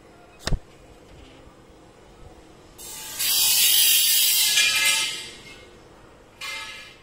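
Built-in sound effects of a Samsung S5050 mobile phone played one after another: a sharp click about half a second in, a louder noisy sound lasting about two seconds from about three seconds in, and a short burst near the end.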